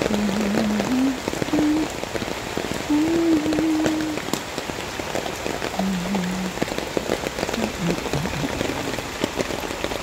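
Steady typhoon rain falling on leaves, plants and wet ground. A few short, low, steady tones sound over the rain now and then.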